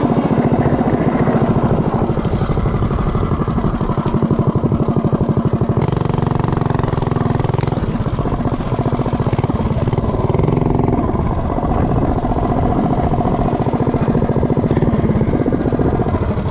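Tillotson 212 single-cylinder engine on a minibike running as the bike is ridden slowly, its revs shifting up and down; about six seconds in the note changes and holds steadier for a few seconds.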